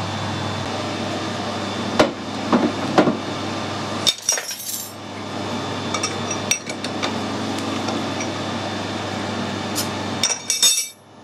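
Scattered metallic clinks and knocks of tools and a knurled steel bush being handled at a lathe's collet chuck, over a steady machine hum; a cluster of clinks comes about four seconds in and another just before the end.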